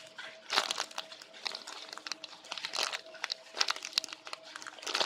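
Irregular crinkling and crackling of plastic as a squishy toy is handled, with a faint steady hum underneath.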